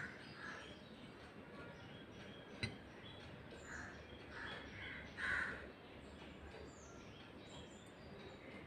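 Faint room tone with birds calling faintly: three short harsh calls in the middle and a few thin high chirps. A single light click comes about two and a half seconds in.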